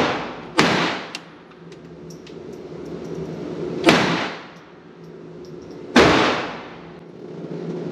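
Semi-automatic pistol fired three times, the second shot about three seconds after the first and the third about two seconds later, each bang echoing through an indoor range.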